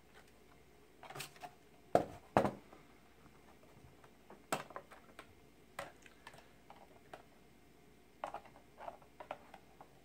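Plastic clicks and snaps as the white plastic cover of a TiVo Bolt is unclipped and lifted off its case by hand. Two sharp snaps come about two seconds in, then lighter clicks and knocks scattered through the rest.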